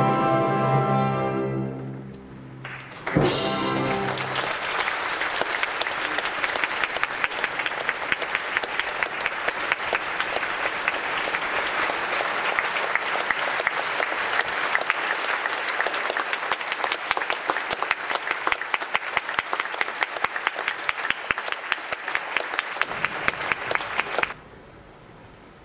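An orchestra ends on a held chord. About three seconds in, a theatre audience starts applauding steadily, and the applause cuts off abruptly near the end.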